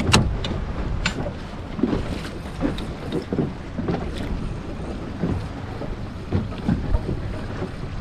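Small boat drifting at sea: water lapping against the hull and wind buffeting the microphone, with a few sharp clicks and knocks, the loudest right at the start and another about a second in.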